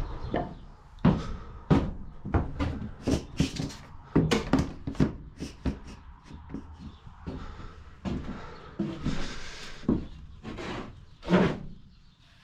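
A rapid, irregular run of knocks and thumps, with rustling between them.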